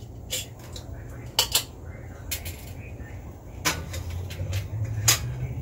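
Aluminium beer can clinking and knocking against a metal beer-can chicken rack as it is set into the holder: a handful of sharp clicks, with a quick double knock about one and a half seconds in and another near the end, over a steady low hum.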